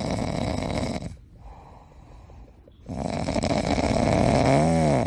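A dog snoring: two long, noisy snores about two seconds each, the second ending in a brief rising-then-falling whine.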